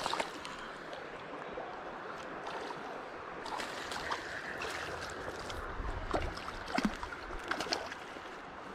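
Shallow creek water running steadily over riffles, with scattered short clicks, most of them in the second half.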